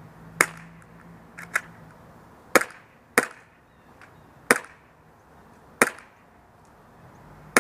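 Short-stroked Tokyo Marui Glock 17 gas-blowback airsoft pistol firing single shots at an uneven, unhurried pace: about six sharp cracks of the gas discharge and slide cycling, with two fainter clicks between the first and second shots.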